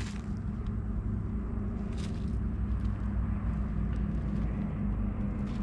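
A motor engine running steadily, giving a low rumble with a pulsing hum, and a brief click about two seconds in.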